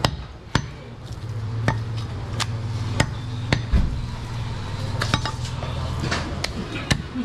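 Meat cleaver chopping mutton on a wooden log chopping block: a run of sharp, irregular strikes, about one every half second to second, some landing as duller thuds.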